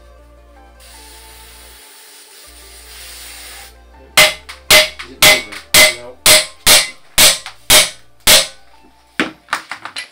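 An aerosol spray hissing for about three seconds, then about ten sharp hammer blows on metal, roughly two a second, each ringing briefly, as the rusty Raleigh Grifter's handlebar stem is knocked loose; a few lighter knocks follow near the end.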